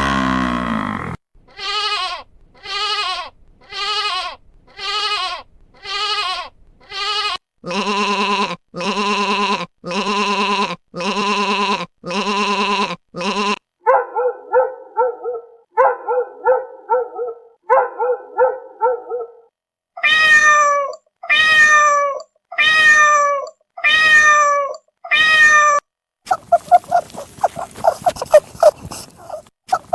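A string of repeated animal calls in sets of about six identical calls each, including cat meows with falling pitch, changing to a different animal every few seconds and ending in a fast run of short calls.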